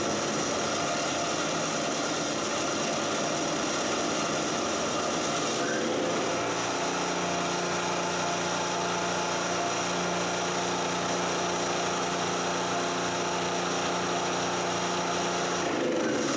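The single-cylinder gasoline engine of a Harbor Freight 3000-watt portable generator is running on gas through its newly fitted tri-fuel conversion carburetor, just after starting. The note is uneven at first and settles into a steady, even hum about six or seven seconds in.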